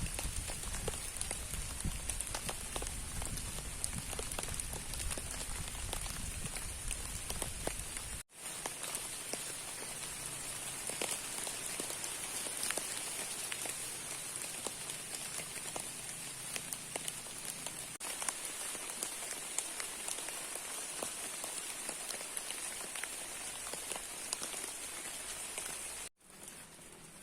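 Heavy rain falling, a dense patter of individual drops ticking close by. A low wind rumble runs under it for the first eight seconds or so, and the sound drops out briefly twice.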